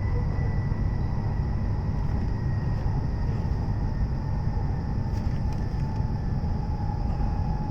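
E7 series shinkansen heard from inside a passenger car: a steady low running rumble with a faint electric whine that falls slowly in pitch.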